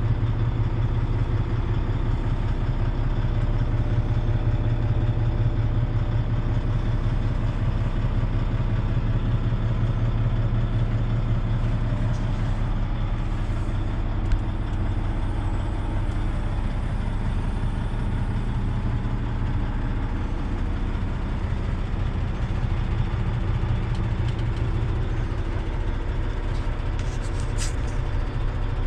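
Volvo A40D haul truck's six-cylinder diesel engine running steadily, heard from inside the cab. A single click about halfway through and a short high hiss near the end.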